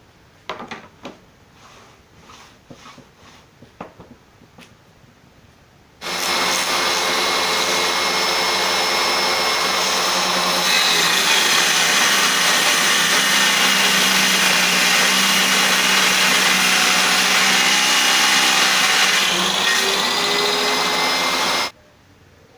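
A few light knocks, then the motor of a homemade table saw starts suddenly and runs loud and steady for about fifteen seconds. Its pitch drops partway through, holds lower for several seconds, then rises again just before the sound cuts off abruptly.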